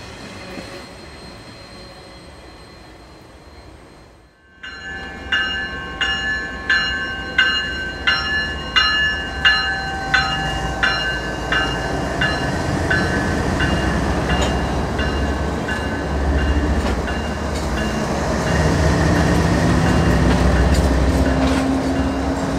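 Quiet rumble of intermodal cars rolling by. A few seconds in, a bell starts ringing at about one and a half strikes a second and fades away over several seconds. Under it builds the loud low rumble of a light-engine set of BNSF GE diesel locomotives passing close.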